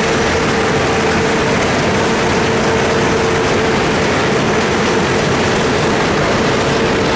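Claas Lexion 580 combine harvester running steadily under load, a dense mechanical noise with a constant whine over it.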